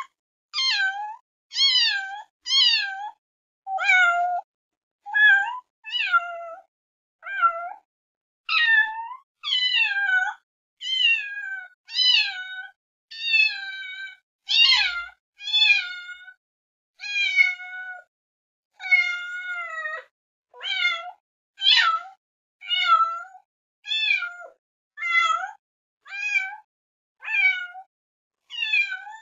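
A cat meowing over and over, about one meow a second with brief silences between, each meow bending in pitch.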